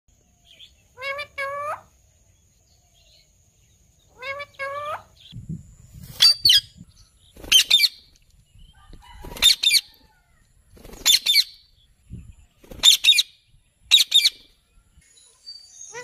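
Rose-ringed parakeets calling: two lower, two-part calls in the first five seconds, then a string of harsh, high screeches, one every second or two. A few soft wing flutters come in between.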